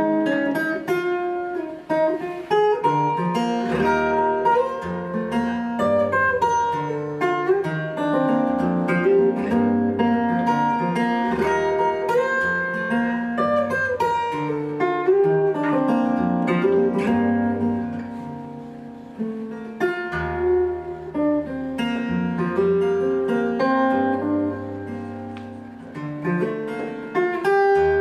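Solo acoustic guitar played fingerstyle: a plucked melody over bass notes, dropping quieter briefly about two-thirds of the way through and again near the end.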